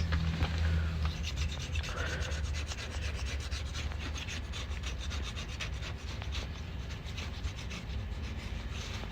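Old gasket material being scraped and scrubbed by hand off a metal differential cover's sealing surface: a run of quick, uneven rasping strokes.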